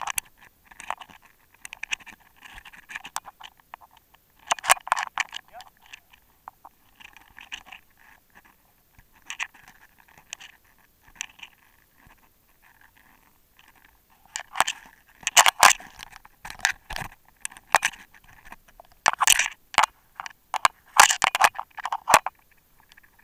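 Indistinct voices with clicks, knocks and scrapes of dive gear being handled on a small aluminium boat.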